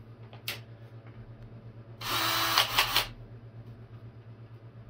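Cordless drill fitted with a paint-mixing paddle runs in one short burst of about a second, with a steady motor tone under the whir. A single click comes about half a second in.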